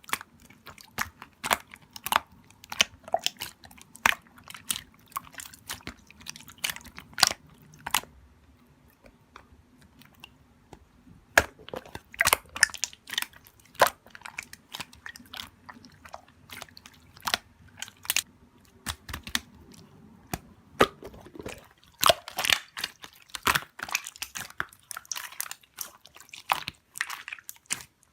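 Slime being squeezed and worked by hand, making a string of sharp, irregular clicks and crackles, with a quieter stretch about nine to eleven seconds in.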